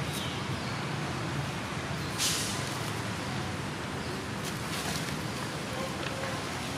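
Steady low outdoor rumble and hiss, with a brief sharper hiss about two seconds in.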